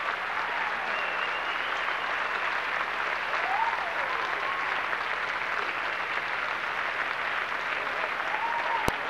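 Audience applauding steadily, with a few cheering voices rising and falling in pitch above the clapping. There is a single sharp click near the end.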